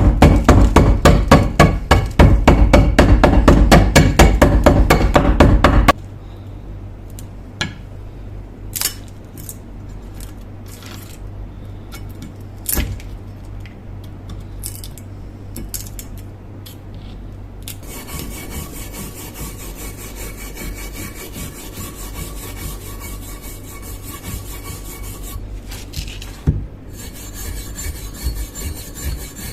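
A hand tool scraped over the rusty steel axe head in rapid, even, rasping strokes for about six seconds. Then quieter scattered clicks of handling over a low steady hum, and from about two-thirds of the way in a faint steady whir.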